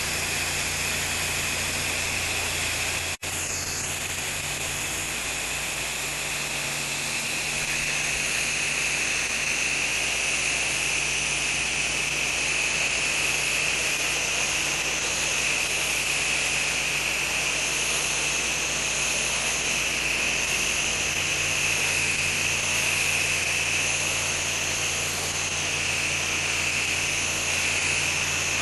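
Soft-wash soap spraying steadily from a washing hose nozzle, a continuous hiss over the steady hum of the wash rig's pump motor, with a momentary break about three seconds in.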